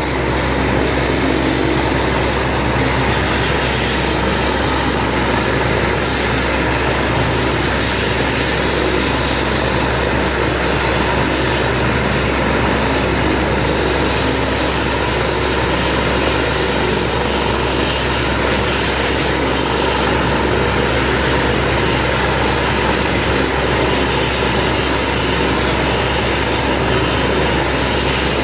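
Helicopter running steadily on the ground: an even rotor and turbine noise with a thin, steady high-pitched whine, holding the same level throughout.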